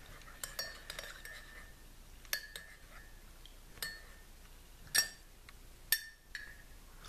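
A stainless steel teaspoon clinking against the inside of a ceramic mug as tea is stirred. There are about six separate clinks, each with a brief ring, spaced irregularly a second or so apart.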